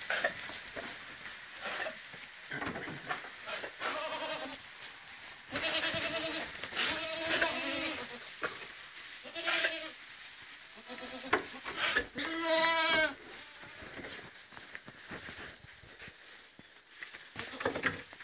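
Goats bleating, several calls one after another through the pen, the longest a loud, quavering bleat about twelve seconds in.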